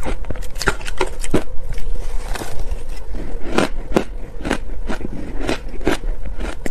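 Close-miked biting and crunching of soft shaved ice dusted with matcha powder: a quick, irregular run of crisp crunches, a few each second.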